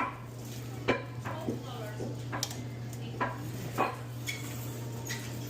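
Metal utensils knocking and clinking against pans and food containers, a handful of sharp strikes spread unevenly about half a second to a second apart, over a steady low hum.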